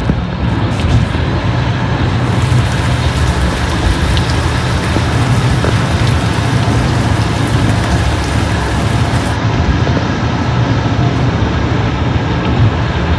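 Steady low rumble and rushing noise of a vehicle travelling at speed.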